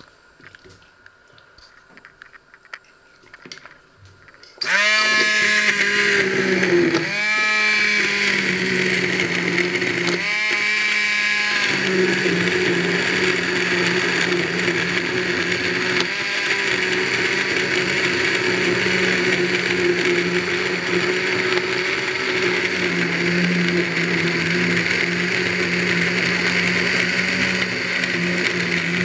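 Hand-held immersion blender switched on about four and a half seconds in. Its motor revs up in three rising spin-ups, then runs steadily as its blade churns through a pot of cooked whole fruit and liquid.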